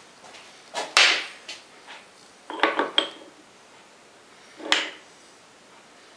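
Metal tools and parts clanking as they are rummaged through and handled: a loud clank about a second in, a quick run of clinks midway, and one more clank near the end.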